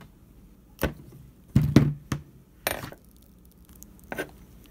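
A few knocks and clinks of hard objects being handled and set down on a workbench, four in all, the loudest about two seconds in.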